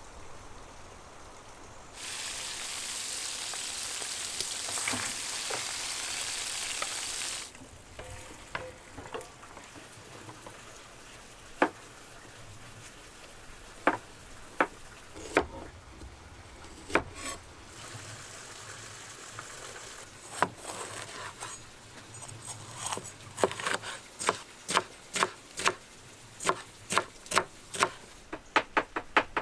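A large cleaver chopping vegetables on a wooden board: a few scattered knocks at first, then a steady run of chops, about two or three a second, in the last several seconds. Early on, a steady hiss lasts about five seconds.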